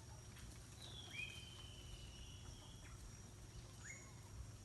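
Faint bird calls over a low rumble: one long, thin, slowly falling whistle, and short rising chirps about a second in, near the end and just after.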